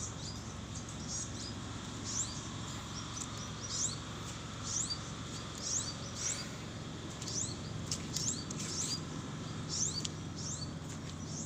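Small bird giving short, high chirps about once a second, over a steady background hiss.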